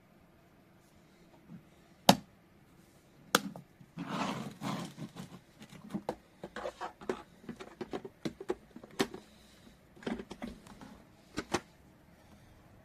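Handling noises: sharp knocks and clicks, the loudest about two seconds in, with a burst of rustling about four seconds in and a run of smaller clicks after it.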